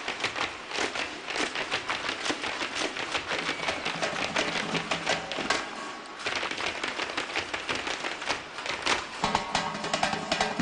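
Fast live percussion on a large double-headed drum: a dense run of rapid, sharp beats and clicks accompanying a dance. A held, pitched melody line joins about nine seconds in.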